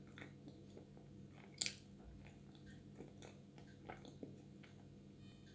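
Faint closed-mouth chewing of a thick, sticky paste: soft, wet mouth clicks, with one sharper click about one and a half seconds in.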